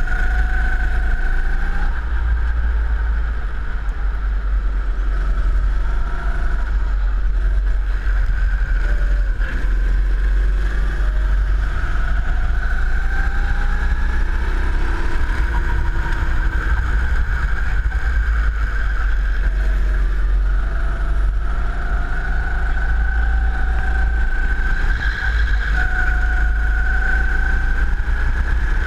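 Go-kart engine heard from onboard, its pitch rising and falling as the kart accelerates out of corners and slows into them through the lap, over a steady low rumble.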